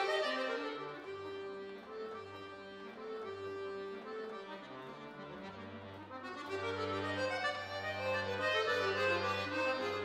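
Solo Cooperfisa concert button accordion playing classical music: a softer passage of melody over held bass notes that grows louder again about six seconds in.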